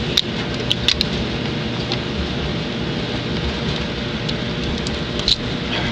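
Vacuum cleaner running steadily as the air supply for a Lego pneumatic oscillating engine, a constant rushing noise with a low rumble. A few light clicks come in the first second and one more near the end.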